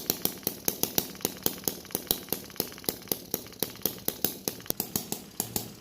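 A small engine running with sharp, even clicks, about six a second, that stop near the end.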